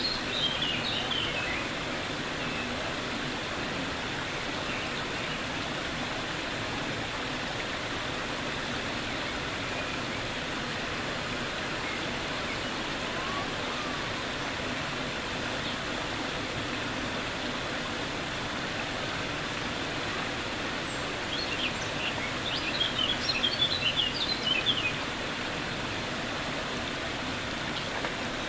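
Steady rushing of running water. Quick high twittering bird chirps come at the very start and again for a few seconds about three-quarters of the way through.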